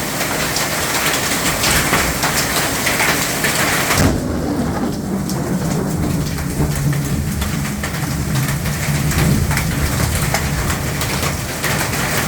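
Heavy rain pelting down with a dense crackle. About four seconds in, the hiss suddenly falls away and a long, low rumble of thunder rolls on under lighter rain.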